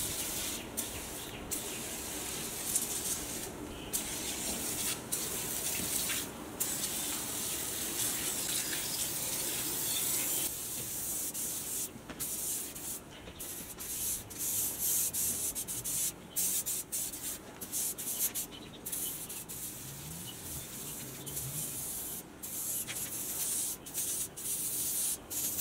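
Aerosol tin of water-based citrus degreaser spraying in repeated hissing bursts, broken by many short pauses, as it is worked over a motorcycle engine and frame.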